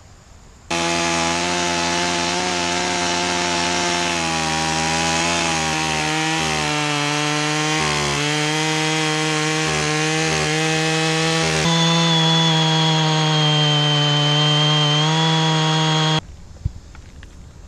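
Chainsaw running at high revs, its pitch dipping slightly now and then as it cuts wood. It starts abruptly, jumps in tone about 12 seconds in, and cuts off abruptly.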